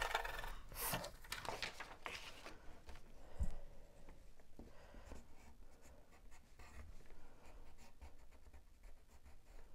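A No. 2 pencil scratching on paper: brisk strokes shading graphite onto the back of a sheet, then lighter strokes tracing an outline to transfer the image. There is a soft knock about three and a half seconds in.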